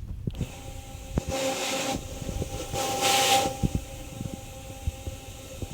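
Floor washing machine running with a steady motor hum and low knocking. Two hissing bursts of about a second each come a little over a second apart, the second louder.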